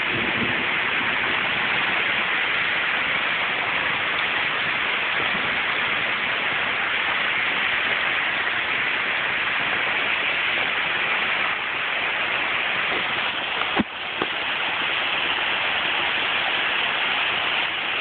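Heavy rain pouring down steadily in a thunderstorm, with a single sharp knock about fourteen seconds in.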